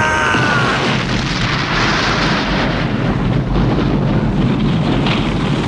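Explosion-type rumble from an animated action soundtrack: a loud, continuous, noisy roar with no single sharp bang. A held high-pitched tone or cry fades out about a second in.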